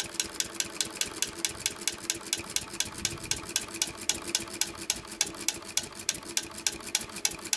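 Small single-cylinder engine fitted with a homemade piezoelectric ignition, running as a fast, even clatter of sharp clicks, several a second, over a faint steady hum.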